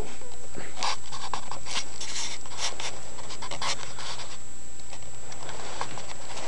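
A greyhound sniffing right at the microphone, with short, irregular rustles as her head and fur brush against the camera.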